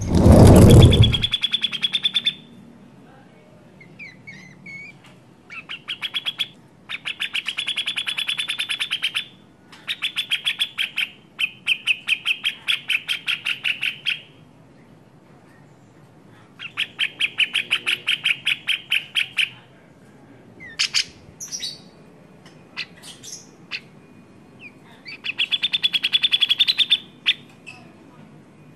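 Cak jenggot bird calling in repeated fast, rattling chatters of many short notes, each run lasting one to three seconds with pauses between, typical of the bird's agitated 'ngamuk' calling. A loud low rumble sounds under the first second.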